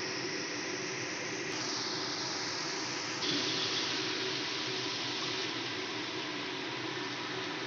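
Onion masala frying in hot oil in an iron kadai: a steady sizzling hiss, with abrupt shifts in it about a second and a half and about three seconds in.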